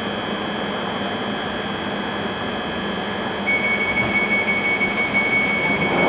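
Inside a London Underground Northern line 1995 Stock tube train standing at a platform: steady running hum and whine of the train's equipment. About three and a half seconds in, a high steady electronic tone comes in and the overall noise rises a little.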